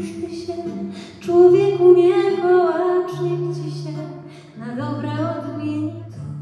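Singing: a woman's voice sings phrases with held and sliding notes, with short breaks between them, over steady low notes that shift pitch every second or so.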